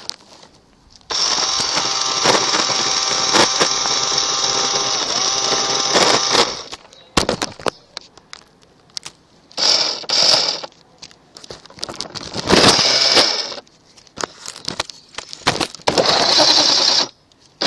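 Small remote-control toy car's electric motor and gears whining in bursts: one run of about five seconds, then three shorter runs of about a second each. Scattered clicks and knocks come between the runs.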